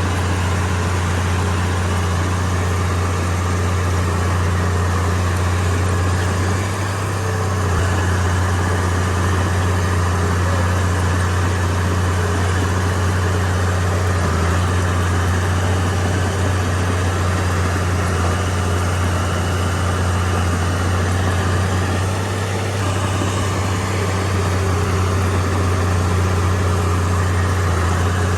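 Komatsu D31P bulldozer's diesel engine running steadily with a strong low drone, dipping slightly in level twice.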